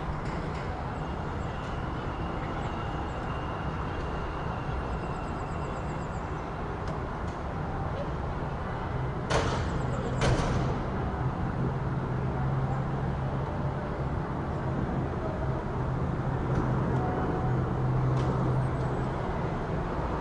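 City street traffic ambience with steady road noise. Two short sharp hisses come about halfway through, then a vehicle engine hums low and steady, louder for several seconds before easing.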